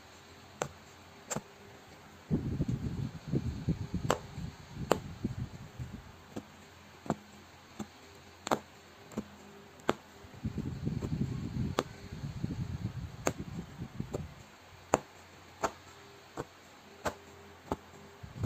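Punch needle pushing yarn through fabric stretched taut in an embroidery hoop: a sharp tick or pop at each stitch, about one to two a second at an uneven pace. Twice there is a few seconds of low rubbing noise from hands handling the fabric and hoop.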